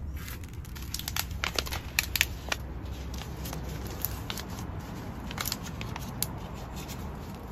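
Plastic seed-cell trays being set down and shifted on a greenhouse's wire shelf: a scatter of light clicks, taps and rustles.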